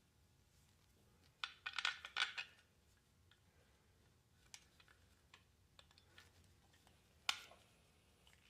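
Small metal clinks and rattles as screws and heater parts are handled: a quick cluster about a second and a half in, a few light ticks, and one sharp clink near the end.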